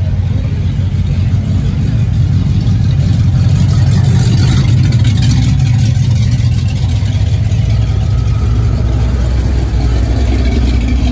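Cars cruising slowly past with a low engine rumble, one passing close about halfway through.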